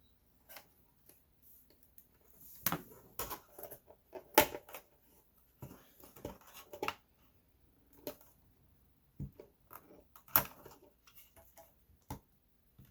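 Irregular clicks, taps and light scuffs of a small RC crawler's hard plastic body and chassis being handled and worked on, with sharper knocks about four seconds in and again around ten seconds.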